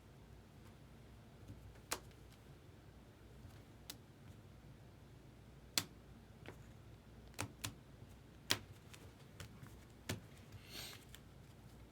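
Trading cards and hard plastic top loaders being handled: scattered sharp clicks and taps, about ten, with a short rustle near the end.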